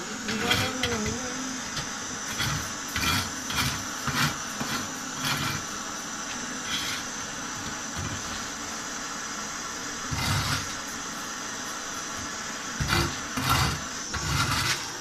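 Hand-held Super Ego gas-cartridge blowtorch burning with a steady hiss, used for soldering copper pipe. Short knocks and clicks of handling sound over it at irregular intervals.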